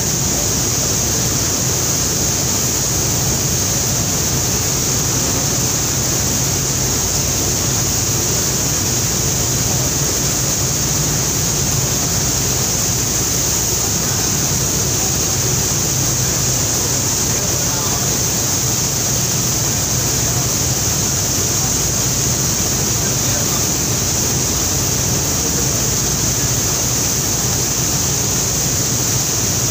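Churning propeller wash behind a river passenger launch: a steady rush of foaming water with a low, steady hum beneath it.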